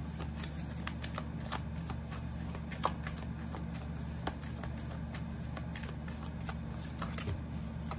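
Tarot cards being shuffled by hand: a continuous run of quick card flicks and riffles, with two sharper clicks a little under three seconds and just past four seconds in, over a steady low hum.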